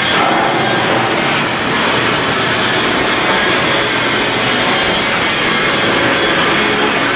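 Loud, steady noise of shipyard work machinery, running without a break.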